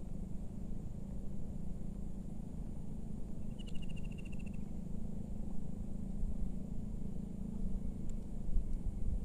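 Outdoor ambience: a low rumbling noise throughout with a faint steady high insect tone above it. About three and a half seconds in comes one short, rapid trilled call lasting about a second.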